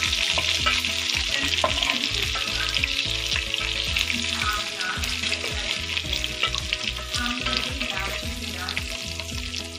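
Chicken pieces sizzling in hot oil in a pot while a wooden spatula stirs and scrapes among them. The sizzle eases a little toward the end.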